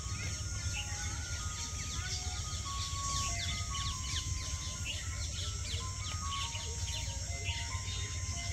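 Background music, a slow melody of single held notes, over a bird chorus of many short, quick, falling chirps and a steady high hiss.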